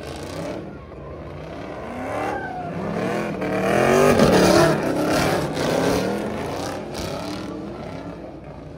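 Car engines revving and accelerating, their pitch sweeping up and down; loudest about four seconds in, then easing off.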